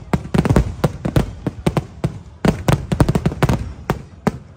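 Aerial firework shells bursting overhead in a rapid, irregular barrage of sharp bangs, several a second, that stops shortly before the end.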